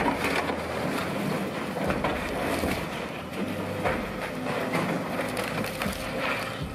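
Scrap handler's grab claw crushing a city bus's roof and windscreen: metal and glass crunching and cracking in many irregular sharp crackles over the machine's steady engine drone.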